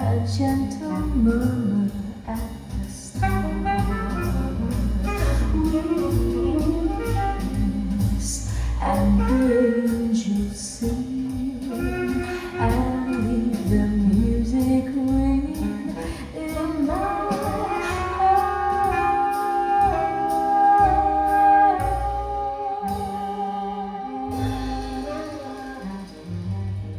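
A jazz ballad recording playing an instrumental passage: a melodic lead line over bass and a soft rhythm section. A little past the middle the lead holds one long note with vibrato for several seconds.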